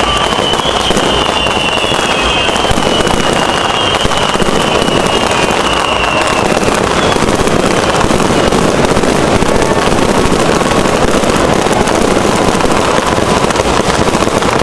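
Fireworks display: a loud, dense, continuous crackling and popping of many shells bursting at once, with thin whistling tones over the first half.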